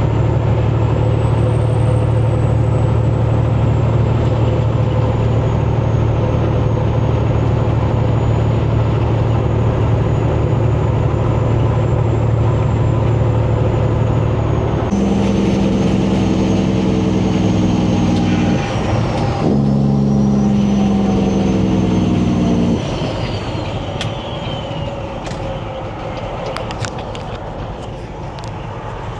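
Semi-truck engine running steadily while driving, heard from inside the cab. About halfway through, a loud, steady, chord-like drone sounds twice with a short break between, then the level drops and the engine note falls as the truck slows.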